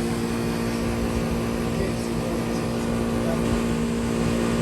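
Running air conditioner condensing units: steady compressor hum with the whoosh of the condenser fans.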